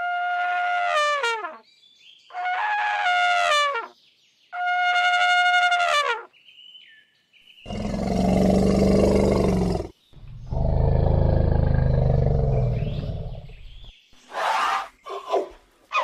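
Elephant trumpeting: three high calls of about a second and a half each, dropping in pitch at the end, followed by two long, deep, rough calls of a few seconds each, and shorter calls again near the end.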